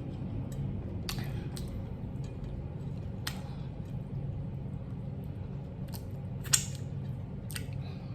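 Eating sounds: chewing and scattered sharp clicks of cutlery on a plate, about six in all, the loudest a little past halfway, over a steady low hum.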